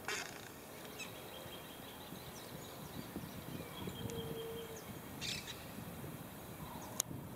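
Outdoor background with a few faint bird calls and scattered short clicks, including a brief low hoot about four seconds in and a sharp click near the end.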